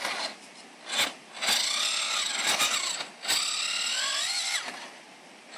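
Electric drive motor and gearbox of a converted Radio Shack Off Roader RC truck whining in several bursts of throttle as it crawls under load. The whine rises and falls in pitch with each burst: a short one about a second in, then two longer ones through the middle.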